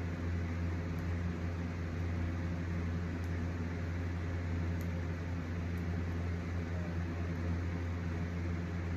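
Steady low mechanical hum with a soft hiss, unchanging throughout.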